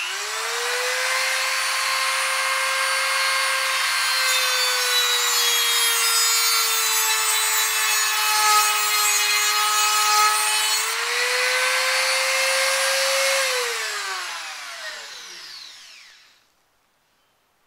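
INGCO mini die grinder (rotary tool) with a thin cut-off disc cutting stainless steel sheet: a high motor whine with a grinding screech, the pitch sagging a little under load. About eleven seconds in, the disc comes off the metal and the whine rises, then the motor winds down and stops near the end.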